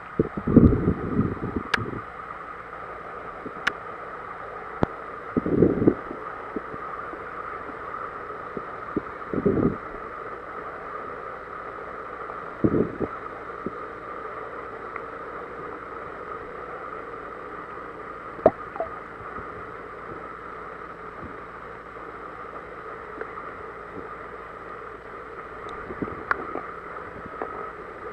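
Muffled underwater ambience picked up by a camera in a waterproof housing: a steady hiss with several low, muffled thumps in the first half and a few sharp clicks.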